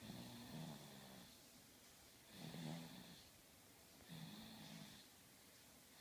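A sleeping baby snoring softly: three short, low-pitched snores about two seconds apart.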